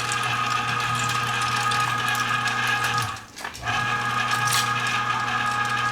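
Cabela's 3/4 HP electric meat grinder running steadily with a constant hum and whine while grinding venison. It stops briefly about three seconds in, then starts again about half a second later.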